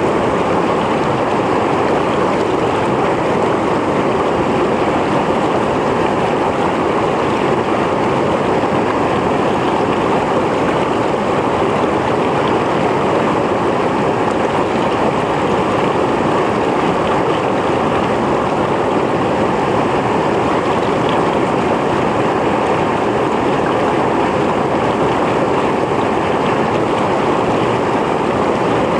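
Mountain stream flowing, a steady loud rush of water over rocks.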